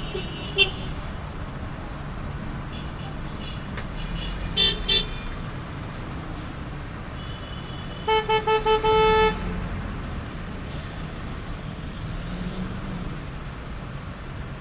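Steady rumble of city street traffic, with car horns honking: two short toots about four and a half seconds in, then a quick string of four short toots and a longer blast about eight seconds in.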